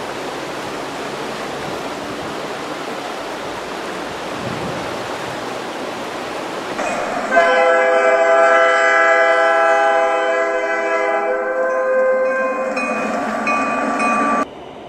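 A steady rushing noise, then a diesel locomotive's multi-chime air horn sounding one long chord for about seven seconds, cutting off suddenly near the end.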